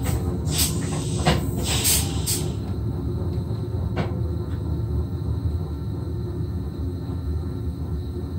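Inside the driver's cab of an SGM Sprinter electric train rolling slowly: a steady low rumble, with a run of short clicks and brief hisses in the first two and a half seconds and one more click about four seconds in.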